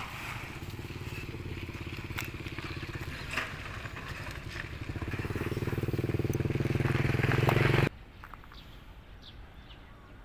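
A small engine running, growing steadily louder for about eight seconds, then cutting off abruptly.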